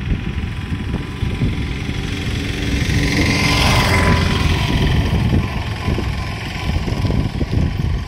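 Wind buffeting the microphone with a steady low rumble, while a motor vehicle passes, its sound swelling to a peak about four seconds in and then fading.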